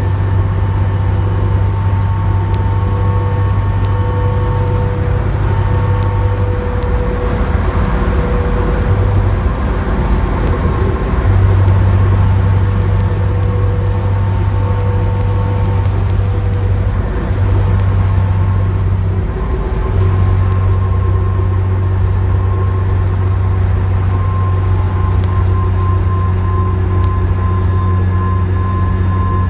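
Inside a New Flyer D40LF transit bus cruising at freeway speed: the Cummins ISC inline-six diesel drones low and steady, with a whine above it and road noise. The low drone eases off briefly a few times, about a third and two-thirds of the way through.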